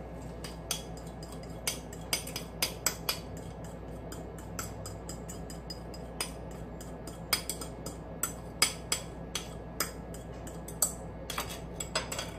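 A spatula scraping and tapping against a bowl as crepioca batter is poured out into a frying pan: many quick, irregular clinks.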